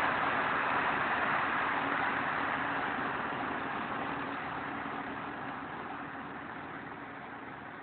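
Diesel engine of a Caterpillar 120G motor grader running steadily, with a faint hum, fading gradually throughout.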